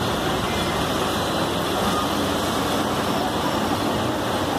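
Busy street traffic noise with the engines of MSRTC buses running as they move slowly through the street; a steady, even din.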